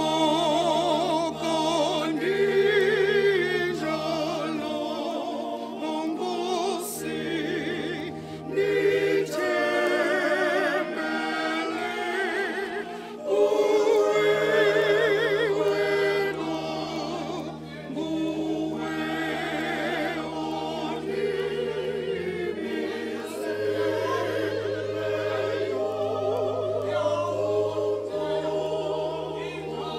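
Choir singing slow, sustained choral music with vibrato over long held low bass notes.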